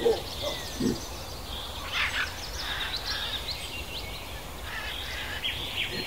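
Forest ambience of small birds chirping in quick, short notes over a steady high drone, with one short low call a little under a second in.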